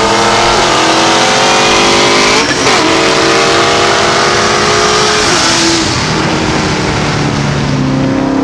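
Corvette V8 engines at full throttle, pulling hard with the pitch climbing steadily and dropping at gear shifts about two and a half seconds in and again about five seconds in, over heavy wind rush; the engine note eases off after about six seconds.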